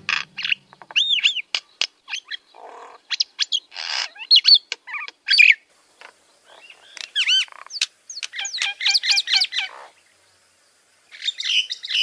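Common myna singing: a varied, busy run of looping whistled notes, sharp clicks and harsh rasping notes. It breaks off briefly, then one last burst comes near the end.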